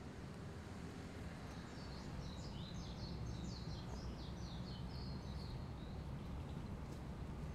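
Steady low outdoor ambient rumble, with a small songbird singing a quick twittering phrase of rapid high notes starting about a second and a half in and lasting about two and a half seconds.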